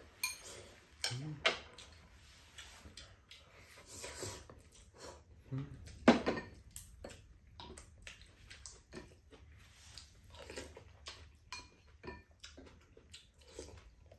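Two people eating glass noodles: chopsticks and spoons clicking against ceramic bowls, and chewing. A sharper knock on the tableware about six seconds in is the loudest sound.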